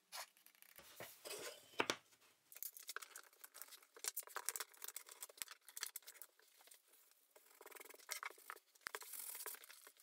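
Small hand-work noises of a wood glue-up: a stick scraping glue along a pine board edge, then a run of quick clicks and rattles from plastic one-handed bar clamps being set, and a cloth rubbing over the wooden bench near the end.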